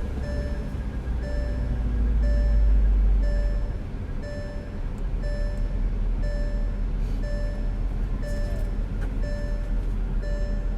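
A car's warning chime beeping steadily, about one and a half short beeps a second, over the low rumble of the running car.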